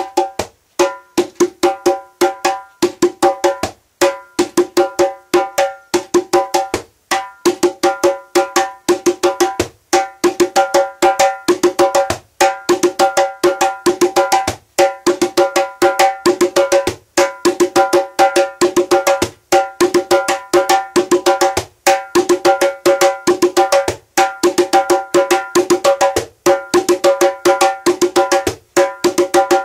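Djembe played with bare hands: a fast run of sharp strokes on the skin head, each ringing briefly with a clear pitch, in a rhythm pattern that repeats about every two and a half seconds.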